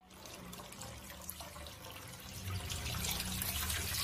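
Water poured from a clay jug splashing onto a flat earthenware dish. It is a steady pouring splash that grows louder about two and a half seconds in as the stream thickens.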